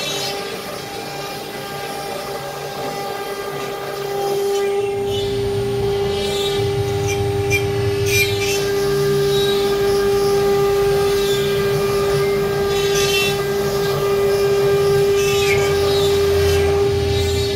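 CNC router spindle whining at a steady pitch while machining a sheet. A deeper rumble of the machine working joins about four seconds in and makes the sound louder.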